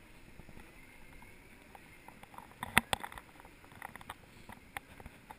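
Faint street noise heard from a moving Segway, broken by a few sharp knocks, the loudest a little under three seconds in.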